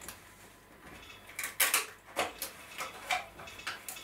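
Wood chisel prying and breaking off the last thin wooden bridges holding a cut-out in a wooden mast's luff groove: a quick run of about eight short, sharp cracks and clicks starting about a second and a half in.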